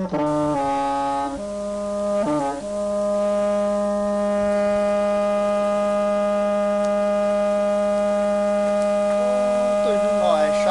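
Music on a brass-like wind instrument: a few short stepped notes, then one long note held steady. A man's voice comes in over it near the end.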